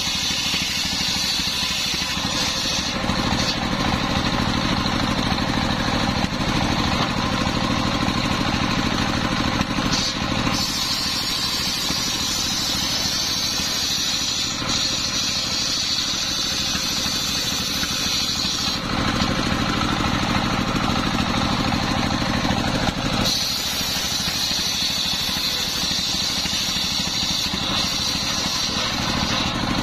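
Large circular saw, belt-driven by a stationary engine, running steadily while ripping a coconut-palm log into planks. Its sound shifts several times as the blade passes into and out of the wood.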